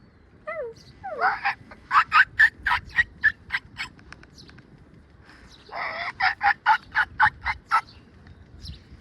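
A gobbling call: a couple of short gliding notes about half a second in, then two bouts of rapid pulsed notes at about four or five a second, each lasting about two seconds.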